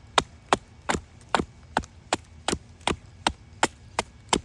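Hatchet chopping into a cherry-wood spoon blank: about a dozen quick, evenly spaced strikes, roughly two and a half a second, each a sharp crack, taking bulk wood off the blank.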